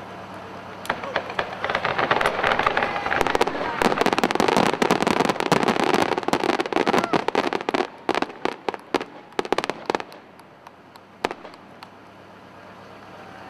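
Fireworks crackling and popping in a fast, dense barrage that builds over the first few seconds. It thins to scattered pops about ten seconds in, with one last pop a little later.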